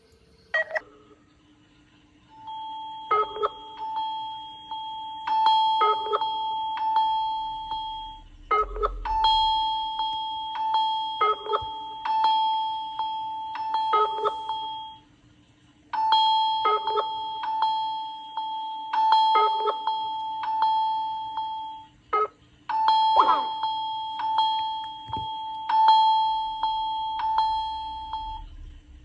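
Smartphone ringtone: a chiming melody over held tones, repeating four times with short pauses between loops, starting a couple of seconds in.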